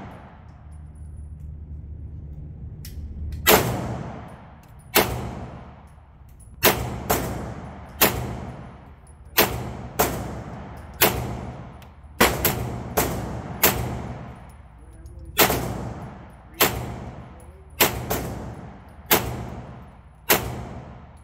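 Pistol-caliber carbine fired in single shots, about twenty over some seventeen seconds at an uneven pace, some in quick pairs and triples, each shot ringing out with a short echo. The first shot comes about three and a half seconds in, after a low steady hum.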